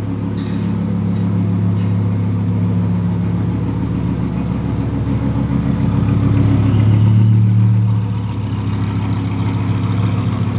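Audi R8's 5.2-litre V10 with a titanium exhaust running at low, steady revs on the dyno rollers during warm-up. It swells a little louder about two-thirds of the way through, then eases back.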